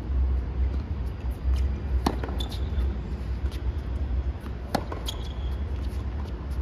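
Tennis rally: a racket strikes the ball loudly twice, about 2 seconds and 4.7 seconds in, with fainter strikes and ball bounces between them. A steady low rumble runs underneath.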